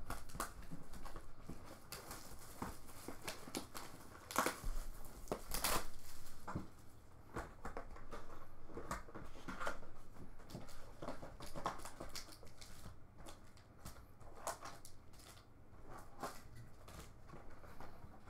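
Plastic shrink wrap torn off a sealed trading-card box and foil-wrapped card packs crinkling as they are lifted out and handled. Irregular crackles and rustles, loudest in the first six seconds or so.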